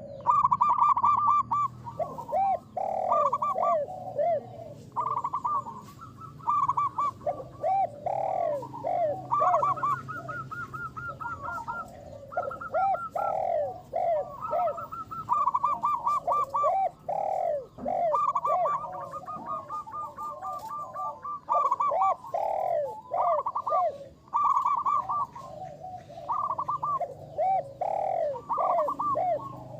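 Zebra doves (perkutut) cooing continuously in rapid trains of short rounded notes, several birds overlapping at a higher and a lower pitch.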